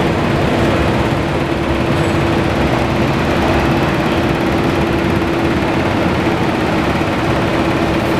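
Honda ST1300's V4 engine idling steadily, with an unchanging hum.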